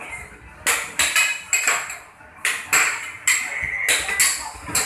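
Basketballs hitting the hoop, backboard and wire cage of an arcade basketball machine: a run of sharp knocks and clanks, each with a short ring.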